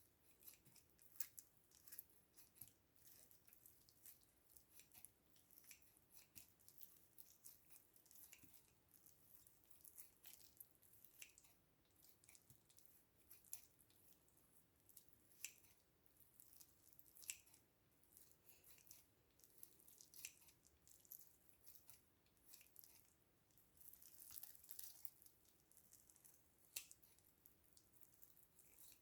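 Faint, irregular sticky clicks and crackles, a few a second, of slime being worked.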